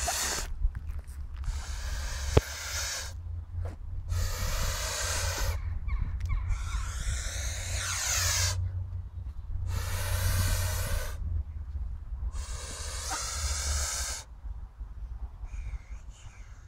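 Domestic white goose hissing in a string of long breathy hisses, about six in all, each lasting a second or two with short pauses between. A single sharp click comes a little over two seconds in.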